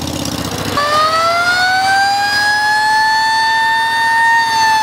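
A siren winds up about a second in, in a slow rising wail, holds near its top pitch, and begins to wind down near the end. Under it, a motorcycle engine idles with a steady low rumble, just fired up.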